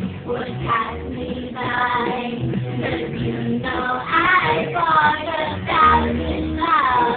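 Music with a singing voice over a bass line.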